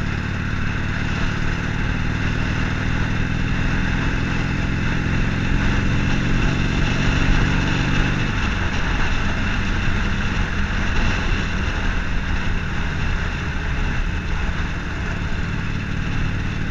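Harley-Davidson Forty-Eight's air-cooled V-twin running while riding at road speed, with wind noise over the microphone. About eight seconds in, the steady engine note breaks up as the throttle changes.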